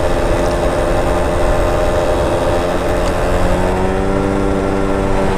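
Motorcycle engine running at riding speed. Its note sags a little and then climbs again about four seconds in, with wind rumble on the microphone underneath.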